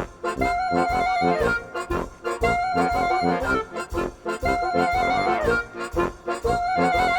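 Background music with a steady beat and a short melody phrase that repeats about every two seconds.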